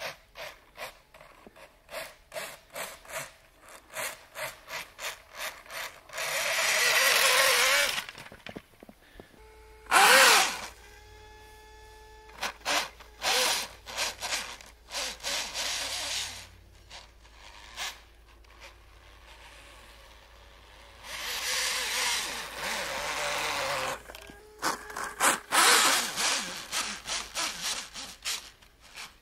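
3D-printed RC snowmobile running across snow on a 3S LiPo, its brushless motor and track heard in bursts of a few seconds. Near the middle comes one sharp rising whine that settles into a steady motor tone. Between the runs there are many short crunches in the snow.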